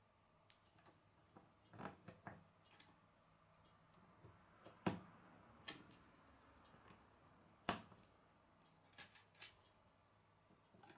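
Plastic K'nex pieces clicking and tapping as they are handled and snapped together: scattered faint clicks, with two sharper snaps about five and eight seconds in.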